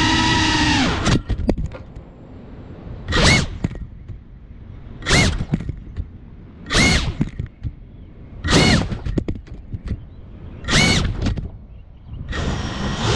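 FPV racing quadcopter's brushless motors: the steady whine drops away as the throttle is cut about a second in. Then come five short throttle punches about two seconds apart, each a quick rising whine, as the drone flips and tumbles.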